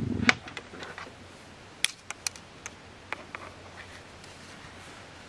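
A black Shiba Inu's loud snore ends about a third of a second in. A few sharp, scattered clicks follow over the next three seconds, then only low room noise.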